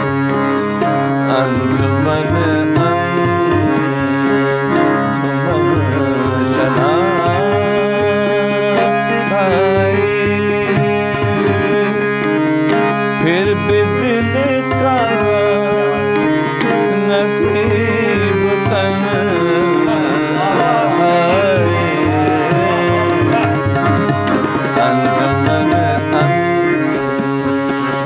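Ghazal played on harmonium and tabla: the harmonium holds steady chords while the tabla keeps a running rhythm. A man sings ornamented melodic lines over them.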